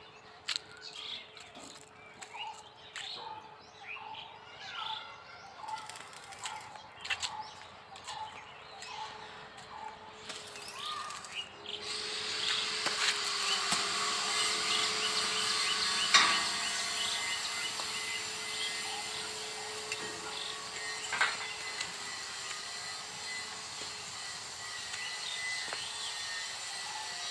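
Birds chirping over a faint steady hum, then about twelve seconds in an arc-welding crackle starts up: a steady, crackling hiss that carries on, with a couple of sharp pops.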